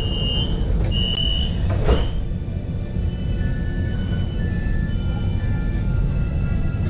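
Alstom Citadis tram's door warning beeper sounding a high tone in several short beeps, then a thud about two seconds in as the doors shut. After that comes the low steady rumble of the tram, with faint on-off whining tones.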